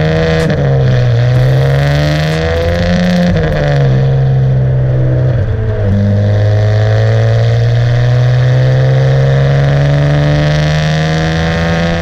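Ferrari 599 GTB's V12 engine and exhaust under hard acceleration. The pitch climbs and drops sharply twice in the first four seconds as it shifts up, then climbs slowly and steadily in the next gear.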